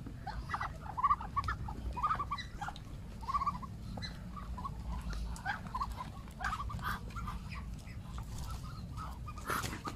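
A flock of Muscovy ducks giving many short, soft calls again and again, over a steady low background rumble, with a brief scuffing sound near the end.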